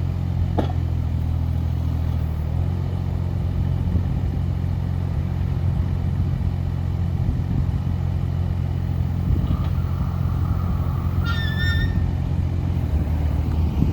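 Kubota U-17-3A mini excavator's diesel engine running steadily, its tone shifting about two seconds in. About ten seconds in a brief high squeal rises over the engine for a second or two.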